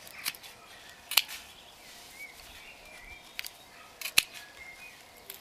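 Hand secateurs snipping a thorny rose pruning into short pieces: a handful of sharp, crisp clicks at uneven intervals, with two cuts in quick succession near the end.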